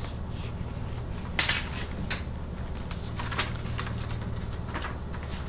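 Pages of a thick handmade paper journal being turned by hand: a few short paper rustles and flaps, the loudest about one and a half seconds in, over a steady low hum.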